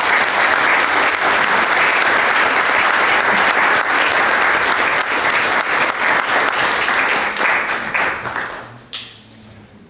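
Audience applauding, a dense steady clatter of many hands clapping that dies away about eight to nine seconds in. A single short knock follows near the end.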